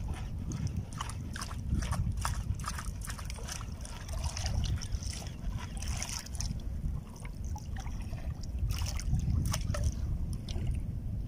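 Sea water lapping and sloshing against a small outrigger boat's hull and float, with irregular small splashes over a steady low rumble.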